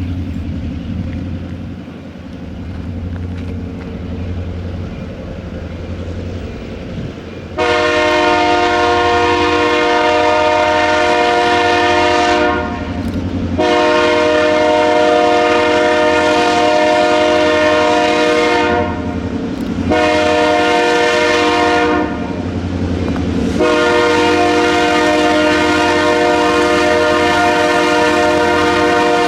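Diesel locomotive idling with a low rumble, then its multi-chime air horn sounds the grade-crossing signal: two long blasts, a short one, and a final long blast, over the engine running underneath.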